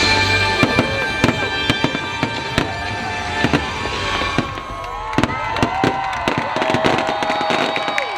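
Fireworks finale: rapid bangs and crackles over the show's music soundtrack.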